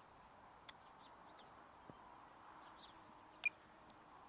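Faint outdoor quiet with small birds chirping softly, many short high chirps. A few light clicks, the loudest a sharp click about three and a half seconds in.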